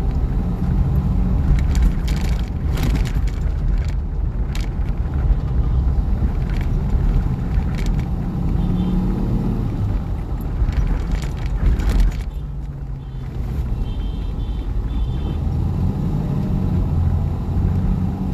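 Engine and road noise heard from inside a moving car's cabin, with a low steady rumble and scattered knocks and rattles.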